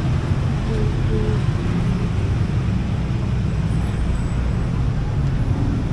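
Steady low rumble of passing road traffic mixed with the general noise of a busy street market, with faint voices about a second in.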